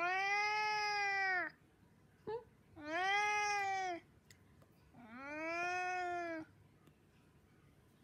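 Brown tabby-and-white domestic cat meowing insistently: three long wailing 'uwaan' meows that rise and fall in pitch, with a short chirp between the first two. A hungry cat on a diet begging for food.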